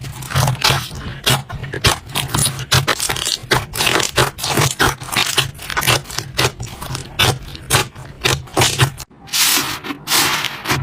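Hands squishing and working slime, making dense, irregular clicking and crackling pops with scraping and rubbing. There is a brief break about nine seconds in, after which the squishing goes on.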